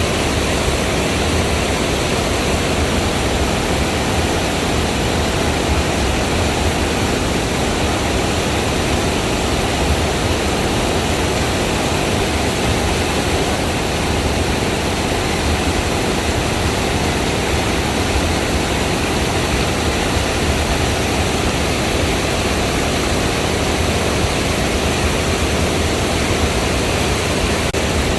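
Rushing water of a waterfall: a loud, steady noise without breaks.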